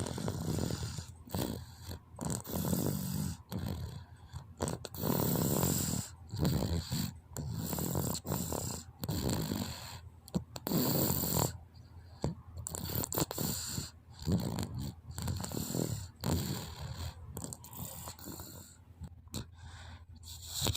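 A small child snoring in sleep: short, rough breaths, about one to two a second.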